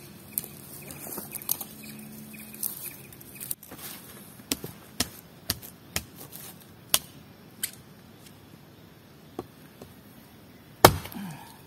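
Chopping wood for a campfire: sharp single strikes, about two a second for a few seconds in the middle, then more spaced out, with the loudest strike near the end.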